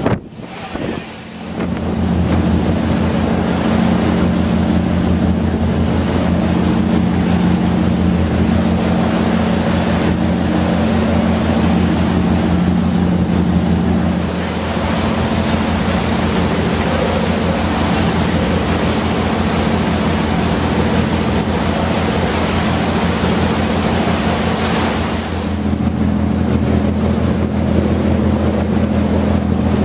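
Boat engine running steadily under way, with a constant hiss of wind on the microphone and water rushing past the hull. The engine note comes in about a second and a half in, and the wind and water hiss covers it more in the middle stretch before the engine comes through strongly again.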